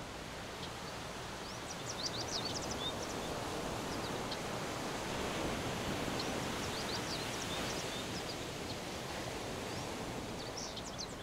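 Outdoor woodland ambience: a steady rush of leaves rustling in the wind, swelling slightly midway, with small songbirds chirping in a few brief flurries of quick high notes.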